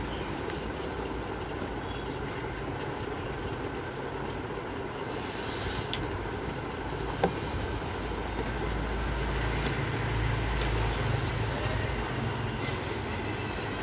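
A steady low background rumble that swells a little between about eight and eleven seconds, with a few light clicks and one sharp click about seven seconds in from a laptop being handled as its keyboard is taken off.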